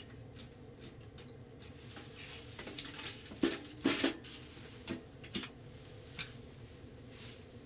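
Small steel wood stove being loaded: metal clanks and wooden knocks as its side door is opened, a split log is pushed into the firebox, and the door is shut. The loudest knocks come in a cluster about three to four seconds in, with a few lighter ones after.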